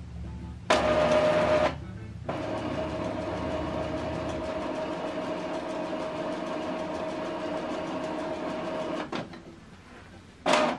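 Epson XP-4205 inkjet printer's internal mechanism running during its first-time initialization after ink cartridges are installed. A short louder whir comes about a second in, then a steady motor whine lasts about seven seconds and stops, and a brief whir follows near the end.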